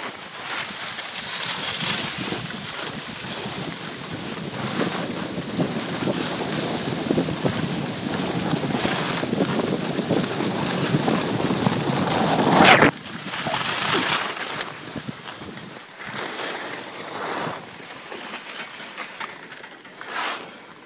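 Wind buffeting the microphone, a continuous rushing that builds to its loudest about 13 seconds in, cuts off sharply, then comes back in weaker gusts.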